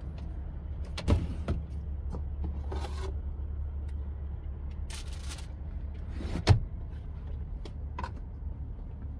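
Oven-style air fryer being opened and its metal wire tray taken out and set down: a clunk about a second in, a brief scrape around five seconds, and the loudest knock about six and a half seconds in, with lighter clicks between. A steady low rumble runs underneath.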